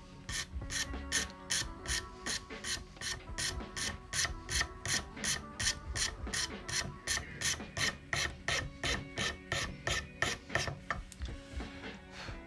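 A flat hand file rasping across a wooden tobacco-pipe blank held in a bench vise, in quick even strokes about three a second. The strokes stop about eleven seconds in.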